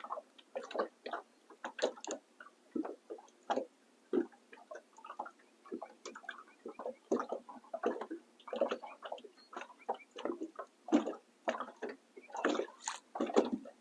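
Small waves lapping against a boat hull: short, irregular slaps and gurgles at uneven spacing.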